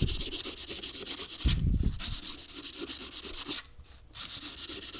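240-grit sandpaper rubbed by hand in quick, even strokes over the clutch cup of a Dana 44 Powr-Lok limited-slip differential, scuffing a crosshatch pattern to break the glaze left by the clutch plates. A low thud comes about one and a half seconds in, and the strokes stop briefly near four seconds.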